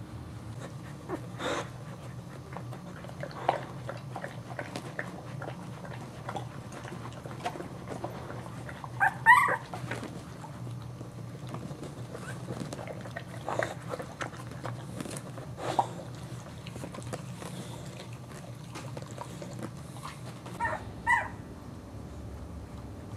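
Two-week-old Boxer puppies playing, giving scattered short squeaks and whimpers, with a louder high-pitched squeal about nine seconds in and another near the end, over a steady low hum.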